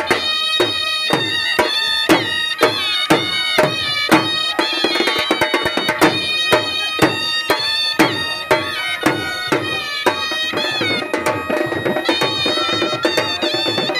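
Dhol drums beating a steady, driving rhythm, about two strong strokes a second with lighter strokes between, under bagpipes and a trumpet playing a sustained folk melody.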